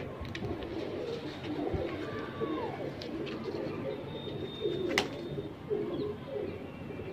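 Saharanpuri pigeons cooing, many short overlapping coos one after another. A single sharp click comes about five seconds in.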